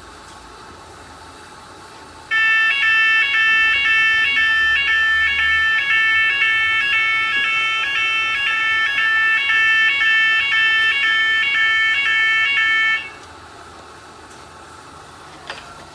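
Metal detector's electronic alarm siren sounding, a loud multi-tone electronic alarm that switches pitch in a regular repeating pattern. It starts abruptly a couple of seconds in, runs for about ten seconds and cuts off suddenly, over a faint steady background hum. The alarm is the detector's signal that it has found metal in the product passing on the conveyor.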